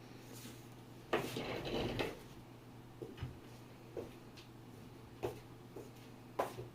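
Faulty brandless PC power supply sparking on switch-on: irregular sharp pops and a longer crackling burst about a second in, over a steady low hum. The sparking marks a fried, failing power supply giving off a burning smell.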